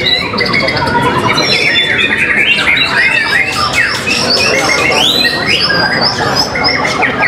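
White-rumped shama (murai batu) singing hard, a dense unbroken run of rapid, varied whistled phrases and trills with quick rising and falling notes.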